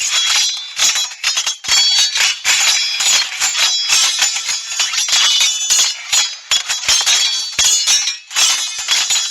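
A dense run of bright clinking and jingling hits, each with a short ringing tone, going almost without a break.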